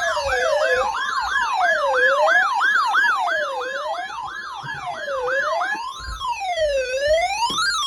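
Electronic siren with two sweeps at once: a fast yelp rising about three times a second and a slower wail that falls and rises about every second and a half, with a steady high tone beneath them. The yelp stops about six seconds in, and the siren cuts off suddenly near the end.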